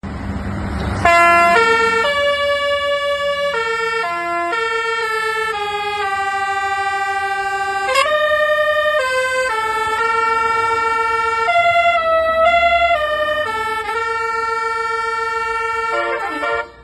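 Telolet horn, a multi-tone melodic horn of the kind fitted to Indonesian buses, playing a tune of long held notes that step up and down in pitch, with a quick upward slide about halfway through. A low rumble is heard for the first second, before the horn comes in.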